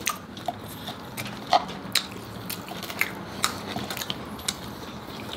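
Close-up crunchy chewing of crispy air-fried lechon kawali (deep-crisp pork belly with crackling skin), with irregular sharp crackles several times a second as the skin breaks between the teeth.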